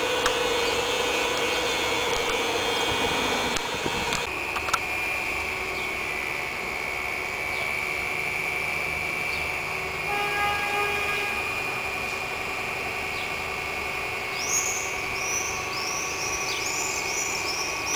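Steady mechanical hum and high whine of a stationary vintage wooden electric railcar, a lower tone dropping out about four seconds in. A run of short high chirps near the end.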